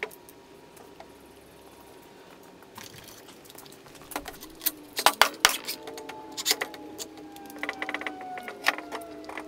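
Bar clamps being handled and tightened on a wooden assembly: scattered clicks and knocks of metal clamp parts against wood, with two sharp knocks about five seconds in and a quick run of clicks near eight seconds.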